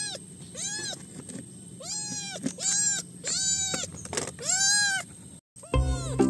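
Calico kitten meowing repeatedly, about six high, rising-and-falling mews a second or less apart. Near the end, after a brief drop-out, background music starts.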